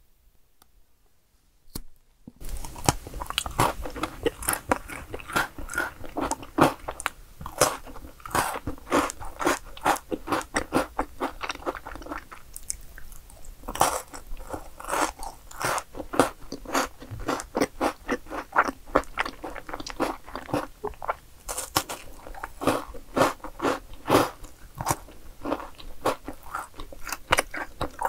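Milka chocolate bars being snapped into pieces and bitten, then chewed. After about two seconds of quiet comes a dense, steady run of crisp cracks and crunches.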